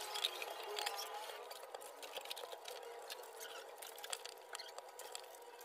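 A small knife whittling a piece of wood by hand: a run of short, dry scraping cuts and little clicks as shavings come off.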